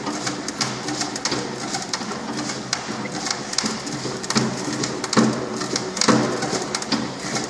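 Hand-lever water pump being worked fast, its mechanism clicking and clattering about once a second with each stroke.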